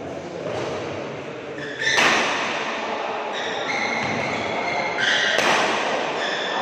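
Badminton doubles rally: sharp racket-on-shuttlecock hits, the loudest about two seconds in and again about five seconds in, with shoes squeaking on the court in a large echoing hall.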